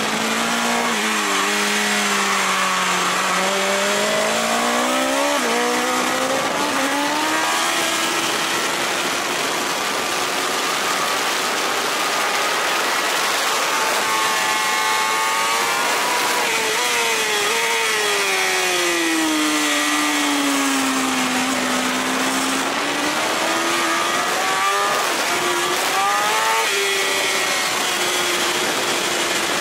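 BMW S1000RR's inline-four engine at track speed, heard from a camera on the bike, its pitch climbing and dropping repeatedly as the rider works the throttle and gears through the corners. A steady rush of wind noise runs under it.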